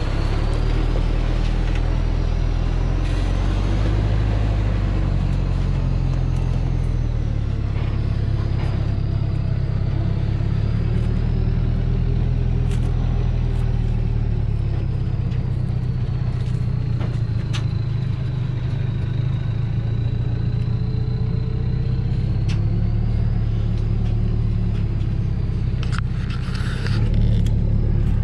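Heavily loaded Thaco Foland diesel truck running under load as it drives along a rutted dirt track: a steady low engine drone with a faint high whine that slowly rises and falls. Scattered clicks and a short rattle come near the end.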